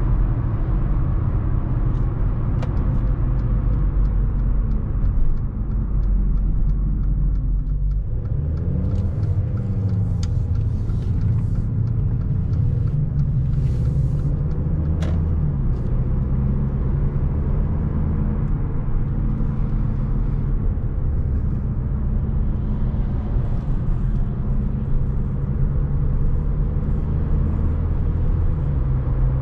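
A 2015 Mercedes-Benz GLA250's 2.0-litre turbocharged four-cylinder petrol engine running under way, heard onboard with steady road rumble. About eight seconds in, the engine note climbs and drops back, like the car accelerating through a gear, then runs steady again.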